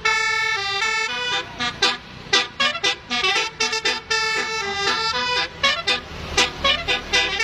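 Basuri musical horn (Indonesian telolet horn) playing a melody: a run of loud, reedy horn notes stepping up and down in pitch, some short and clipped, some held, with brief breaks between phrases.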